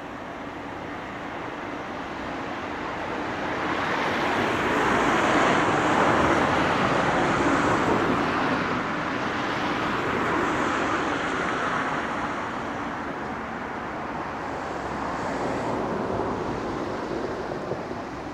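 A vehicle passing, its noise swelling over a few seconds and then slowly fading, with a second, smaller swell near the end.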